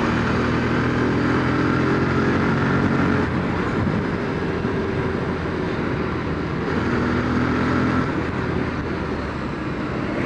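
Motorcycle engine running at a steady cruise of about 55–60 km/h, heard from the rider's seat. The engine note is strongest for the first three seconds and again about seven seconds in, over a constant rush of wind and road noise.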